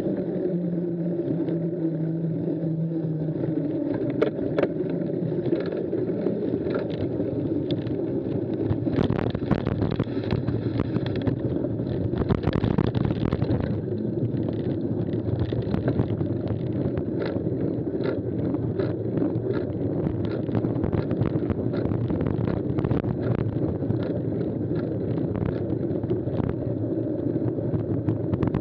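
Mountain bike rolling at speed over a rough dirt track: a steady rumble of tyres and rushing air, with frequent clicks and knocks from bumps, thicker after the first several seconds.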